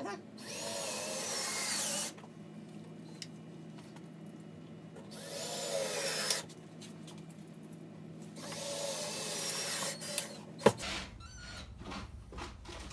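Power drill driving drywall screws through a sheetrock patch into a wood brace behind it, in three runs of a second and a half or two each. The motor whine rises and falls in pitch as each screw is sunk slightly below the surface. A sharp click comes near the end.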